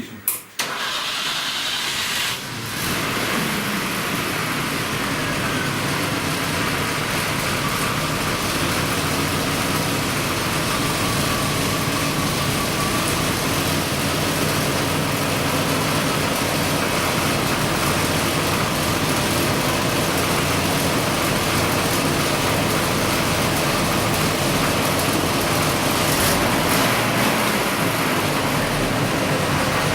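GAZ Volga's carburetted four-cylinder engine (K151 carburettor) being started: a couple of clicks, about two seconds of cranking, then it catches and runs at a steady idle. The owner takes this idle for the fault that troubles the car at traffic lights.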